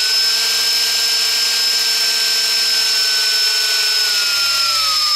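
Cordless drill running steadily with a high motor whine, spinning an empty spool in its chuck to wind fishing line off a reel. The pitch sags slightly near the end.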